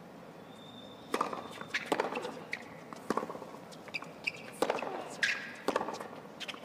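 Tennis rally on a hard court: about half a dozen sharp racket strikes and ball bounces, roughly one every second, starting about a second in.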